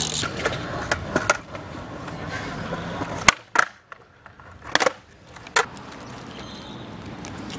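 BMX tyres rolling over a concrete skatepark bowl with a few light knocks. About three seconds in this gives way to a skateboard on a concrete ledge: a few sharp clacks of the board snapping and landing.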